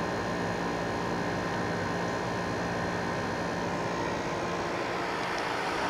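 Frigidaire 50-pint dehumidifier running steadily, its fan and compressor making an even hum with a few faint steady tones. It is working normally, condensing water, after its dirty button contacts were cleaned.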